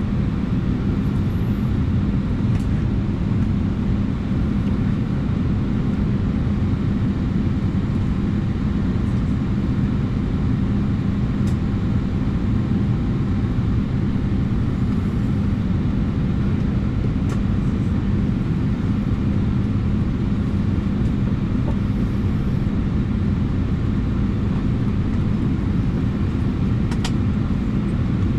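Steady cabin noise inside an Airbus A319 before engine start: an even rush of air with a low hum, from the ventilation fed at the gate. A few faint clicks sound over it.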